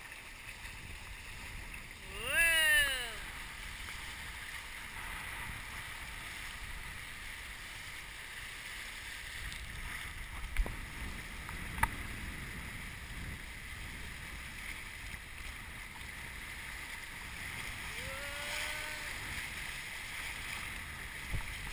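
Hobie Tandem Island sailing kayak running fast downwind through choppy water in strong wind: a steady rushing wash of water and wind. A loud voice calls out once, rising and falling, about two seconds in, a fainter call comes near the end, and two sharp knocks fall around the middle.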